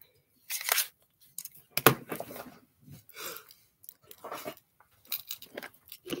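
Scattered rustles and plastic clicks as a folding plastic watercolour palette is closed up and set down on a wooden table, with one sharper knock about two seconds in.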